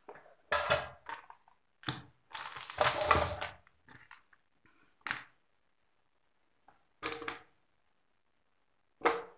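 Handling noise of circuit boards, wires and tools on a workbench: irregular rustling and clattering in about five separate bursts, the longest near the start.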